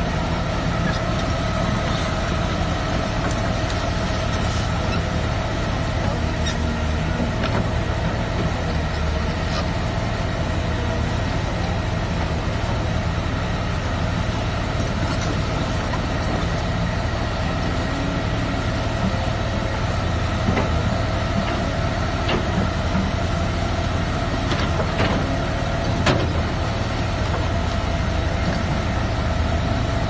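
A Caterpillar excavator's diesel engine running steadily with a low rumble and a constant whine. A few sharp cracks come in the second half.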